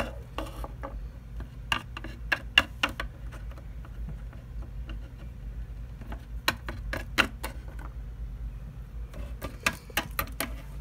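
Small plastic toy animal figurines tapped and clicked against a surface as a hand moves them: scattered light clicks in clusters, about two seconds in, around seven seconds in and again near the end, over a steady low hum.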